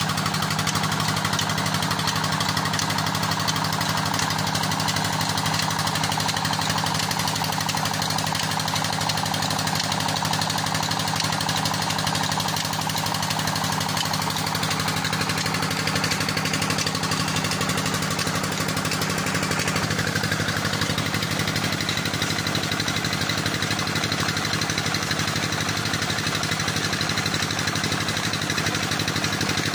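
A 25 HP diesel engine running steadily with a rapid knocking beat as it drives a tubewell's belt-driven water pump. Water rushing from the delivery pipe joins in during the later part.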